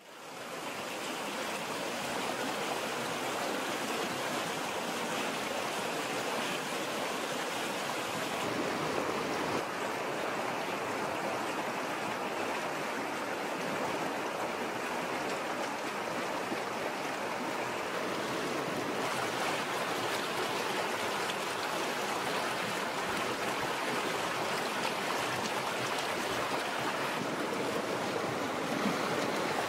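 Stream water flowing and rushing over rocks, a steady wash that fades in over the first second.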